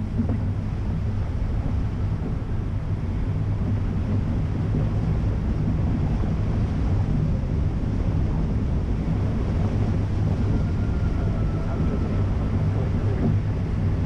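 Nissan X-Trail's engine running steadily as the car wades through a shallow river, with water splashing around the wheels and wind buffeting the outside-mounted microphone.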